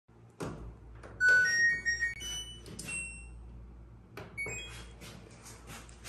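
LG front-load washing machine's control panel beeping: a short electronic chime of notes stepping upward, then a quicker group of rising beeps. A knock comes just before the chime, and light clicks follow near the end.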